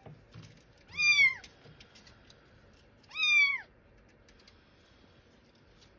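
A young kitten meowing twice, two high-pitched calls of about half a second each that drop in pitch at the end.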